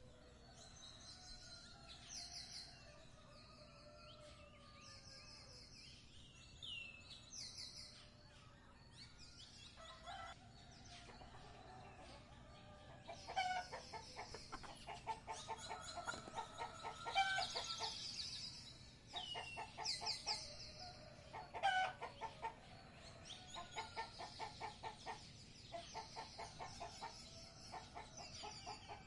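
Faint bird calls: small birds chirping, then from about halfway through, chickens clucking in quick repeated runs.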